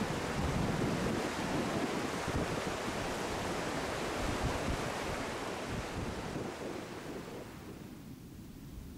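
Rushing water of river rapids, a steady dense rush that fades down from about seven seconds in.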